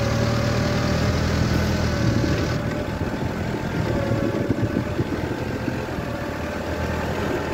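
A work vehicle's engine running steadily, heard from inside its open cab, with a steady whine above the engine sound and a rattling rumble that grows rougher about three seconds in.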